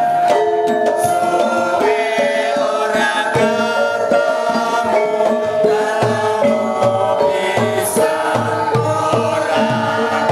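Javanese gamelan ensemble playing, its bronze metallophones ringing in held notes, with a group of men singing along.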